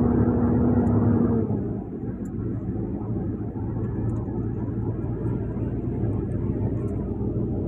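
Vehicle engine running while driving, with road noise, heard from inside the cab. The engine's steady droning note drops away and the sound gets quieter about a second and a half in, then carries on as a lower steady hum.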